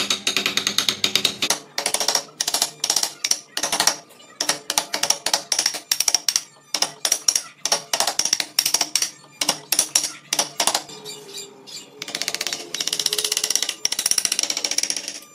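Wooden mallet striking a carving chisel into a wood block, a steady series of sharp knocks about two a second. After a short lull about two-thirds through comes a faster run of closely spaced taps.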